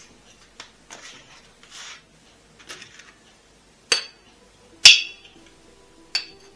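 Dishes and kitchen utensils clinking and knocking: several sharp clinks, the loudest about five seconds in, with rustling handling noise in the first two seconds.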